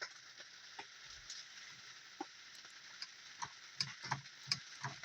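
A 2007 Chrysler PT Cruiser failing to crank: no starter or engine sound, only faint irregular clicking over a steady hiss, a little louder near the end. The car does nothing when the start is tried, a no-crank condition.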